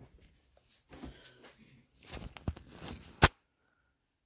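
Handling noise as a car alternator is shifted about on a workbench: rustling and scraping, ending in one sharp knock a little over three seconds in.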